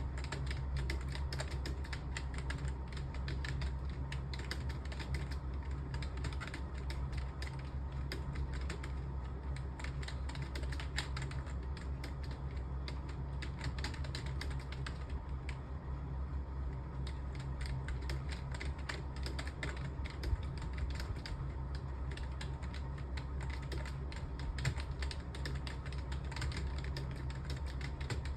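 Fast, continuous typing on a computer keyboard: a dense, uneven stream of keystrokes with no real pauses. A steady low hum runs underneath.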